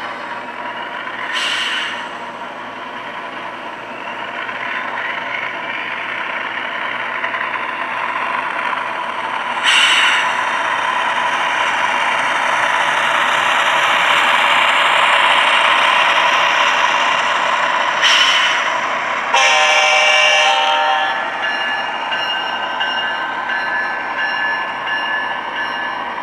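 Model GE ET44AC locomotive and double-stack container cars running past on the track, with the rolling rumble growing loudest midway as the train goes by. Short sharp bursts come about 1.5, 10 and 18 s in, and the locomotive's sound system blows its horn for about two seconds soon after the last burst.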